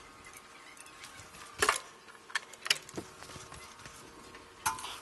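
Small metal parts and tools handled against the lathe's carriage and bed: a few light metallic clicks and taps at uneven intervals, the loudest about a second and a half in.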